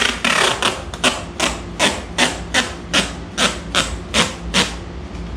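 Tape being pulled off a roll in a quick series of short rasping pulls, about two and a half a second, stopping about three quarters of the way through.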